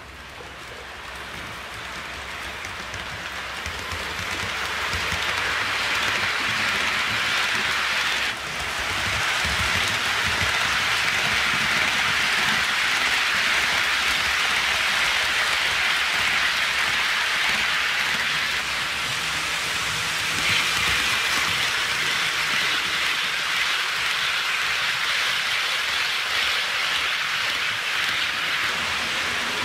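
HO scale model intermodal train rolling along the track: a steady rushing clatter of small metal wheels on the rails over a low rumble. It grows louder over the first several seconds as the train comes near, drops sharply for a moment about eight seconds in, then holds steady.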